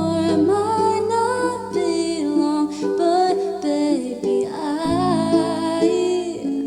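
A song: a voice singing a melody over instrumental accompaniment with sustained low notes.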